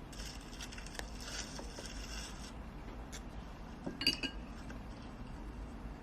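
Tableware being handled while eating: light rustling and a click, then a single ringing clink of glass or a dish against a hard surface about four seconds in.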